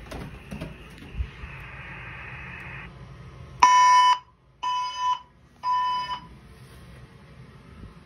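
Ceiling-mounted fire alarm speaker-strobe sounding the temporal-3 evacuation signal: three steady half-second beeps, half a second apart, the first the loudest, starting a few seconds in.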